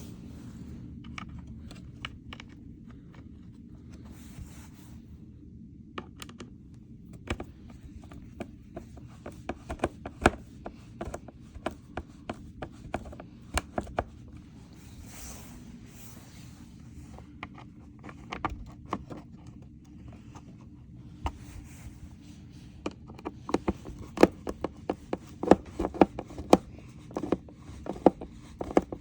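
A Phillips screwdriver driving screws into the plastic base of a Bissell PowerForce Helix upright vacuum, with irregular clicks, scrapes and small knocks of metal on plastic.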